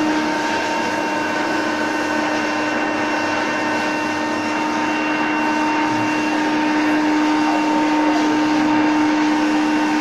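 Steady mechanical whir with a constant humming tone underneath, from electrical equipment running in a motor control centre room. Fainter higher tones in the hum fade out about halfway through.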